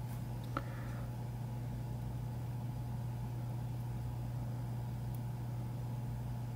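Steady low hum from the microsoldering bench equipment, with one faint small click about half a second in.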